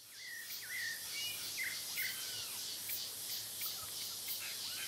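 Birds whistling and calling, including a couple of slow arching whistles, over insects chirping in a steady high pulse about twice a second; the sound fades in at the start.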